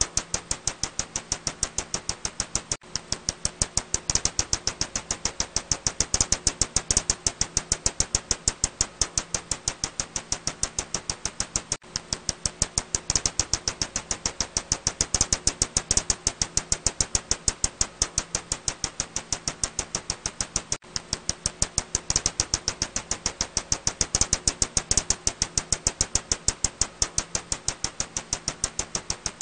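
Ussuri bat echolocation calls made audible as a fast, steady train of sharp clicks, about eight a second, with a short break about every nine seconds. A faint low hum lies underneath.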